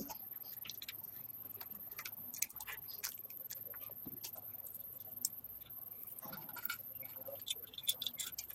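Irregular light clicks and taps, several a second and unevenly spaced, over faint background hiss.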